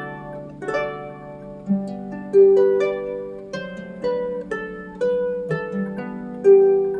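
Background music: a slow melody of plucked string notes, each ringing and fading, over held low notes.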